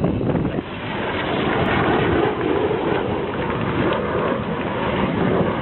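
Jet aircraft roaring overhead in a display flypast, the sound swelling about a second in, with wind buffeting the microphone.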